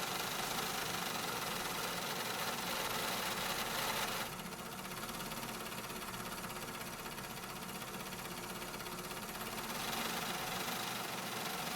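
Factory machinery running steadily, a dense mechanical hum and rattle. About four seconds in, the higher hiss drops back, and it returns near the end.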